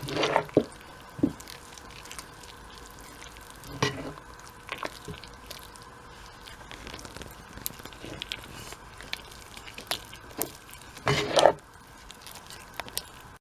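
Thick pancake batter of flour and milk being stirred in a bowl: wet squishing with irregular clicks and scrapes of the utensil against the bowl, a louder flurry near the end.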